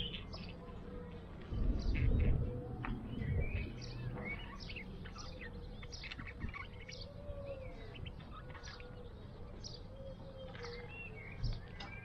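Budgerigar chattering in many short, quick chirps and warbles. A low rumble on the microphone is the loudest sound from about a second and a half to three and a half seconds in.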